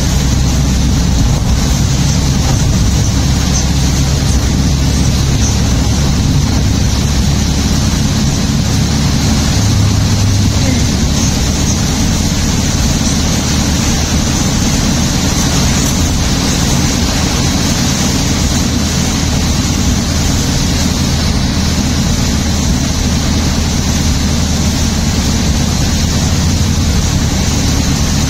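Steady road noise inside a moving vehicle driving through heavy rain: a low rumble of engine and tyres on the wet road under a constant hiss of rain and spray.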